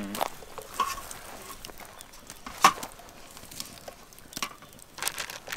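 Small foil-wrapped potatoes being set by hand into campfire embers: scattered light clicks and foil rustles over a faint hiss, the sharpest click about two and a half seconds in.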